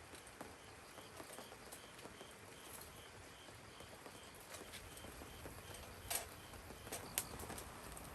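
Light rain pattering steadily, with an insect chirping faintly and regularly, about twice a second, and a couple of sharp knocks near the end.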